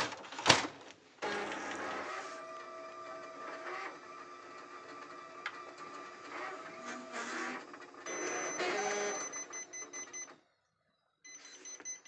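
A Ricoh MP 2554-series photocopier running. There is a sharp click, then about nine seconds of steady mechanical whirring with several held tones, which stops abruptly near the end.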